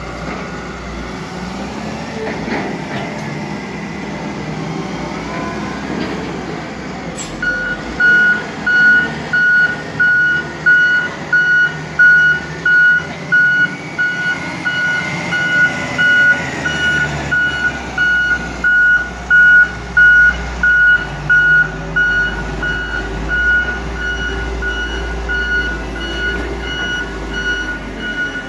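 Diesel machinery running while working silage. About seven seconds in, a reversing alarm starts, beeping loudly and evenly, about one and a half beeps a second, over the engine noise.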